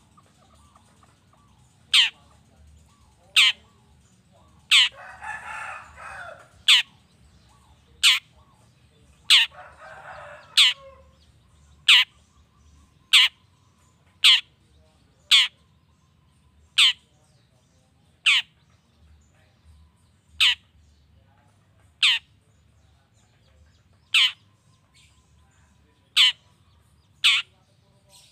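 Long-tailed shrike (cendet) giving a long series of short, sharp, piercing call notes, each a quick downward sweep, one every second or two. Twice, about five seconds in and again around ten seconds, it breaks into a harsh rasping chatter.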